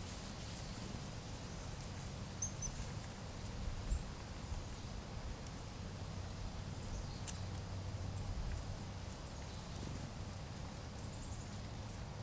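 Eastern chipmunk foraging in dry leaf litter: faint scattered crackles and rustles of dead leaves, with a few sharper clicks, over a low steady rumble.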